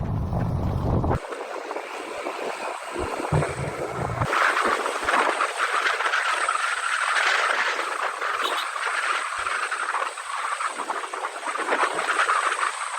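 Rushing water of a waterfall, a steady hiss that changes abruptly about a second in and again about four seconds in, getting louder and brighter after the second change.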